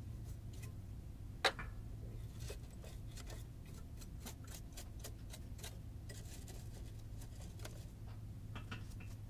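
A small angled lint brush scraping and tapping inside a sewing machine's bobbin area and around the feed dogs, making light, irregular clicks and ticks, with one sharper click about one and a half seconds in. A steady low hum runs underneath.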